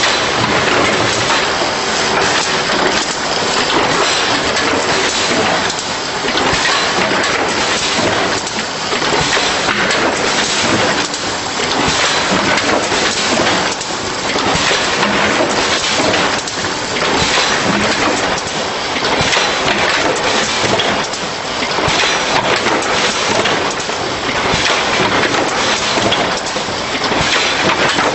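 Box-forming packaging machine running: a dense, steady clatter of many small knocks over a constant rush of noise, swelling a little every few seconds.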